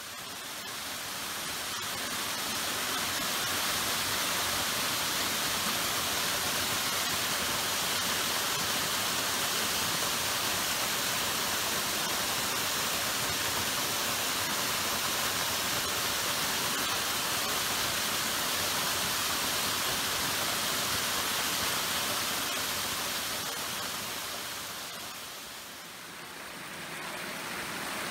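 A small cascading waterfall, water rushing steadily down rock ledges. It fades in at the start and dips briefly near the end before coming back up.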